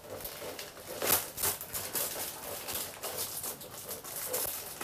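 A parcel being opened by hand: plastic packaging crinkling and tearing in short, sharp rustles, loudest about a second in.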